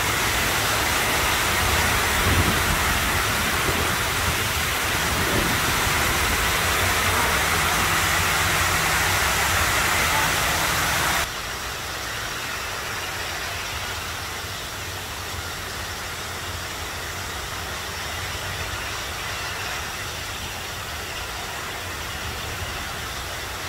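Steady rushing of water cascading down the 64-foot Waterwall fountain into its basin, an even, loud wash of noise. It drops abruptly to a lower level about eleven seconds in.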